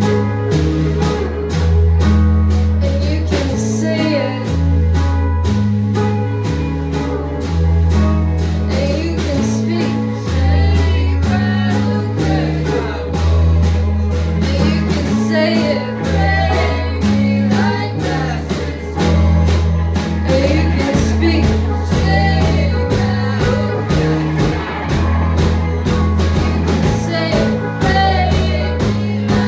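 Live rock band playing through amplifiers: electric guitars over a repeating bass line and steady drum kit, with a singer's voice on top.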